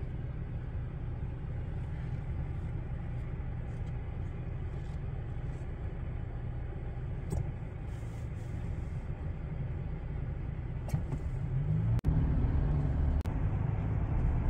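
Steady road and engine rumble inside the cabin of a moving car, growing louder about twelve seconds in.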